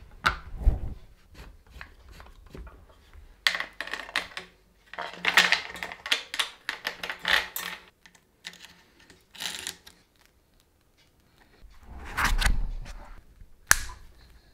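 Light metallic clicking and rattling of bicycle parts being handled while wheels are fitted to a bike in a work stand, in bursts with pauses. Two dull knocks, one near the start and one near the end, are the loudest sounds.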